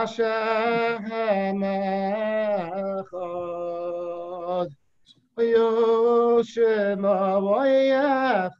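A man singing solo, holding long sustained notes with a slight waver, with a short pause about five seconds in.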